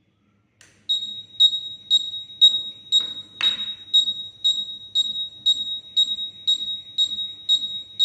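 Electronic buzzer beeping a high tone about twice a second, set off by a magnet, starting about a second in. A short rustle or knock is heard about three seconds in.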